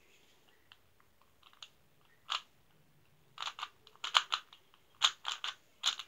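Rubik's Cube being turned by hand to scramble it: quick plastic clicks and clacks of the turning layers, a few at first and then coming fast in clusters over the last few seconds.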